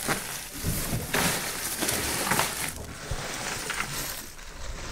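Plastic bags crinkling and rustling as they are moved about in a cooler, with ice cubes clinking and crunching inside a bag of ice.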